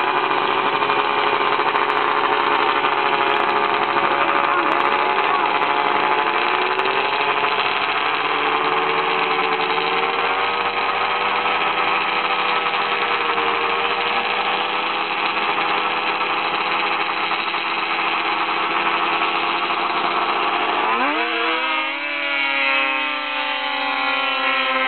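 Snowmobile engines running steadily at the drag-race start line, then revving hard and climbing in pitch about 21 seconds in as two sleds launch off the line.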